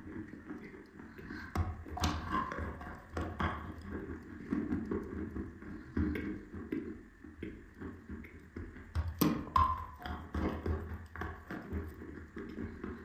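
Close-up chewing and crunching of dry chalk in the mouth: a steady run of irregular gritty crunches, with a few sharper cracks, the loudest about nine seconds in.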